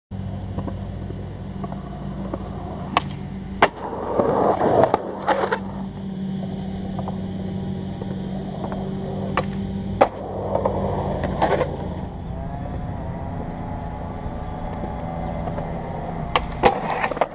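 Skateboard wheels rolling on concrete with a steady rumble, broken by several sharp clacks of the board popping and landing. Louder rough scraping comes about four seconds in and again about ten seconds in.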